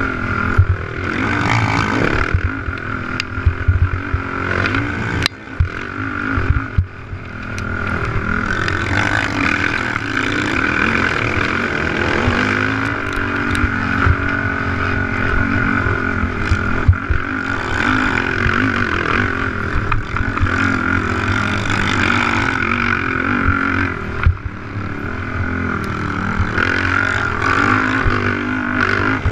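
Honda TRX450R quad's single-cylinder four-stroke engine running hard under race load, its pitch rising and falling with the throttle and easing off briefly about five to seven seconds in. Sharp knocks and rattles from the chassis hitting the rough track come through over it.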